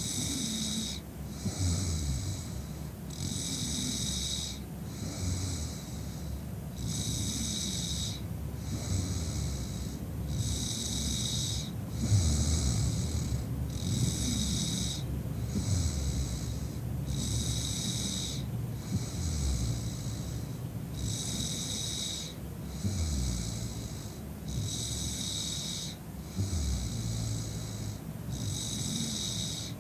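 A woman snoring in drunken sleep, a low rough snore that swells and fades with her breathing. A high hiss pulses regularly about once a second alongside it.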